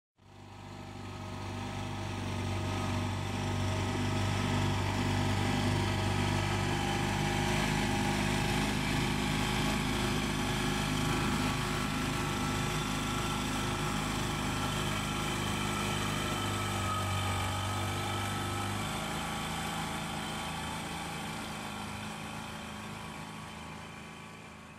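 25-horsepower outboard motor pushing a small boat along at a steady speed. It fades in at the start, its deepest note drops away about three-quarters of the way through, and it fades out near the end.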